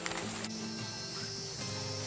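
Background music with sustained low notes; a steady high-pitched hiss joins it about half a second in.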